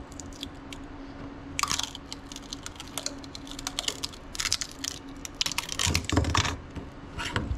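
Metal scraper blade scraping across a 3D printer's build plate and under a freshly printed plastic part, with irregular clicks and crunches as the piece is prised free.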